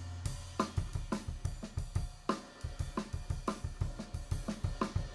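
Jazz drum kit playing a steady groove on its own, bright cymbal and snare accents about every three-quarters of a second over quicker bass-drum and hi-hat strokes. A held low bass note dies away about a second in, as the drums take over.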